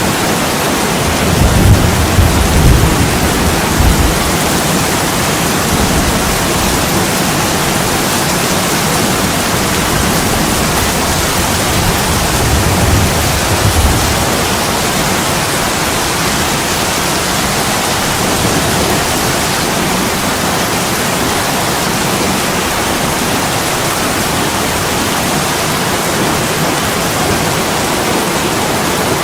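Heavy rain pouring steadily on a window, with two brief low rumbles of thunder, one about two seconds in and another about thirteen seconds in.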